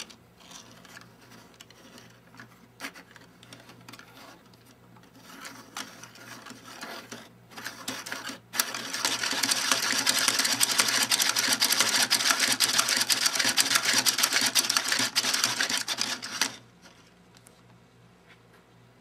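Hand-turned 3D-printed plastic star-wheel mechanism: the three-point star's lobes knock the cam followers and shove the slider back and forth. Scattered clicks while it turns slowly, then about halfway through a loud, fast, continuous clatter as the star is spun quickly, cutting off suddenly near the end.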